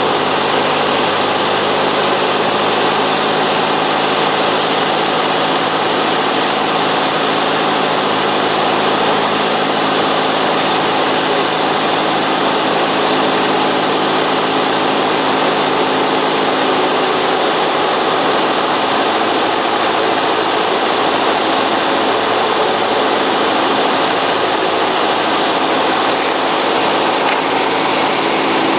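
Cessna 172's piston engine and propeller running in a steady drone, the engine tones holding one pitch throughout.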